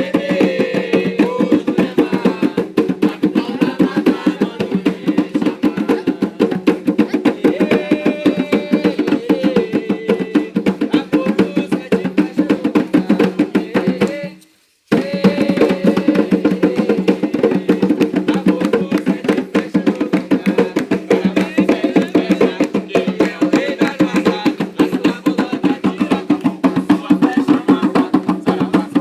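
Fast, dense hand drumming in a ritual drumming session, over a steady sustained sound. The sound cuts out for about half a second about halfway through, then resumes.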